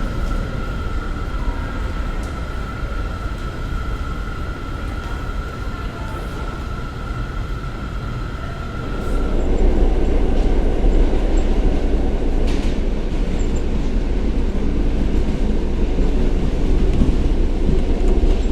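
New York City subway train running, a steady rumble with a steady high whine over it. About halfway the whine stops and the rumble grows louder, with one sharp click a few seconds later.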